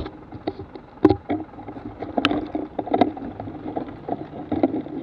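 Buggy Rollin wheelsuit setting off slowly on asphalt: its wheels rumble on the road under irregular knocks and clicks from the plastic shell and wheels, the loudest about a second in and twice more a second or two later.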